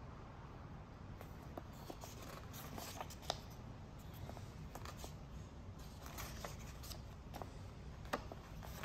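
Faint rustling and soft flicks of paper as the pages of a printed instruction manual are turned, with scattered light ticks, the sharpest about a third of the way in.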